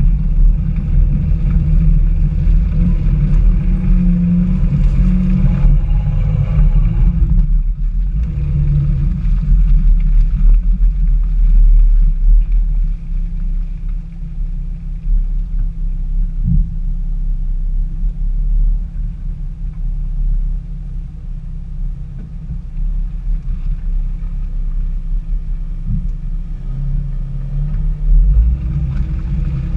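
Off-road vehicle engine running at low speed while driving over a rutted dirt trail, with a deep, steady low drone. The sound thins out briefly about eight seconds in, and two single knocks come later.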